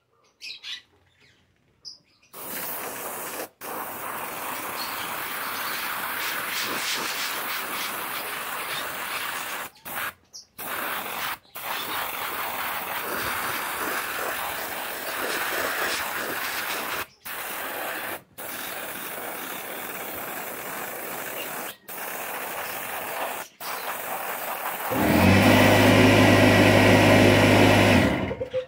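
Paint being sprayed: a steady hiss that stops and starts abruptly several times. Near the end, a louder, steady buzzing hum lasts about three seconds.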